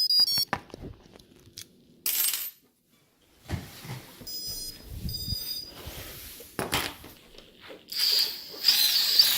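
Antweight spinner combat robot in action: a run of sharp metallic clicks and clinks, short high-pitched electronic tones in the middle, and near the end a steady high whine over a noisy rush from the spinning weapon.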